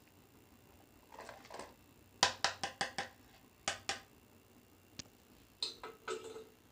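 A spoon clinking and scraping against a bowl of besan batter. There is a short scrape, then a quick run of about five sharp clicks, two more clicks, a single click, and a last scrape near the end.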